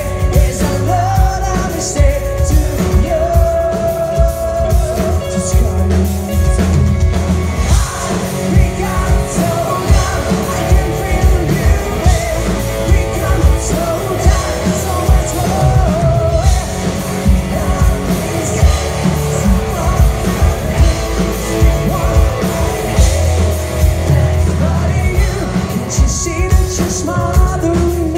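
Live rock band playing through a PA: distorted electric guitars, bass guitar and a drum kit with a lead singer, heard loud from within the audience.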